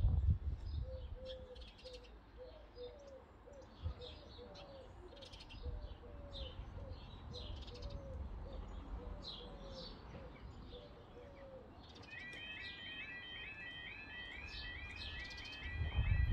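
Birds chirping and singing. About twelve seconds in, the level crossing's electronic warning alarm starts, a fairly quiet, rapid repeating warble about three times a second, signalling that the barriers are about to lower for an approaching train.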